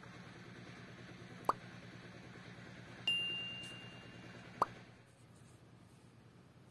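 Sound effects of a subscribe-button animation: a water-drop plop, then a bright bell ding that rings out for over a second, then another plop, over a faint steady hum.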